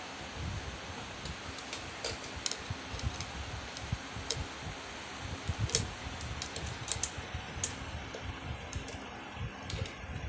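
Irregular light clicks and taps of small parts being handled as wiring inside an electric fan is fastened so it can't move, with a few louder clicks clustered past the middle.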